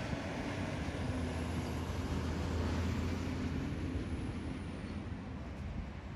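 Road traffic passing close by: cars and pickup trucks driving past, their engine and tyre noise swelling to a peak about two to three seconds in and then easing off.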